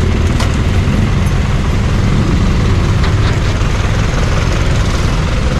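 Steady low rumble of an idling tow truck's engine, with a couple of faint clicks.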